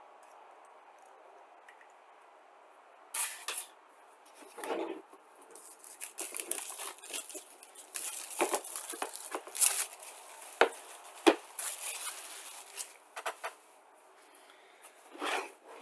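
Boxed packaging being handled and opened, with irregular rustling, scraping and sharp clicks and knocks. It starts about three seconds in and stops shortly before the end.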